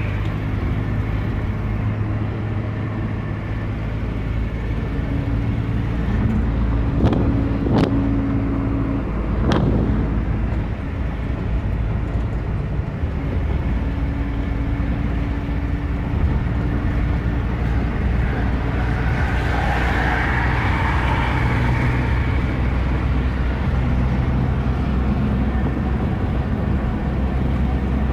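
Car cabin noise at highway speed: steady engine drone and tyre and road rumble. A few sharp knocks come about seven to nine and a half seconds in.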